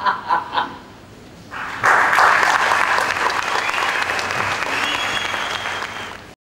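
Laughter trailing off, then a theatre audience breaks into steady applause about a second and a half in, which cuts off abruptly near the end.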